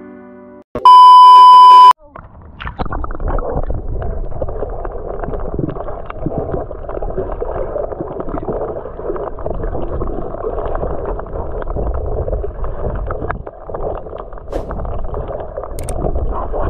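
A loud steady electronic beep lasting about a second, then muffled rushing and gurgling water noise as picked up underwater while a person swims.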